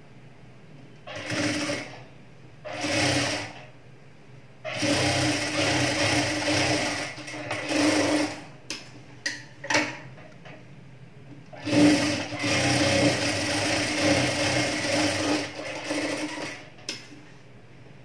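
Industrial sewing machine stitching along the double-folded edge of a blouse piece, running in bursts with a steady hum. There are two short runs, then two longer runs of several seconds each, with a few quick stitches in between.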